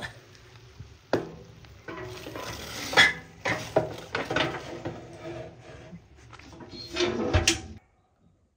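A metal utensil clinking, knocking and scraping against cookware in an irregular series, with some clatters ringing briefly. The sound cuts off abruptly near the end.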